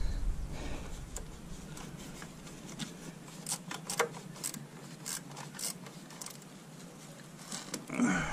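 Gloved hands working among hoses and plastic connectors in a car's engine bay, making scattered light clicks, taps and scrapes.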